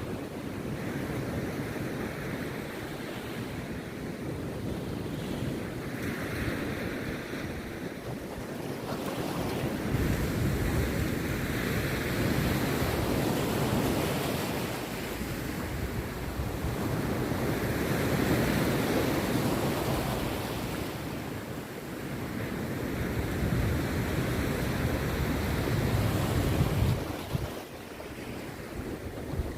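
Rough sea surf breaking on a beach: a continuous wash of waves that swells and eases every several seconds, with wind rumbling on the microphone.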